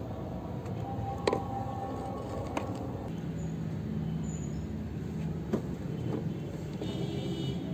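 A steady low, engine-like rumble in the background, broken by a few sharp clicks: about a second in, again near two and a half seconds, and once more past the halfway point.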